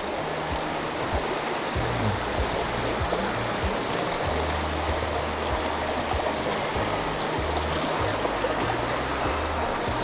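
Mountain stream water rushing steadily, with background music carrying a low bass line underneath.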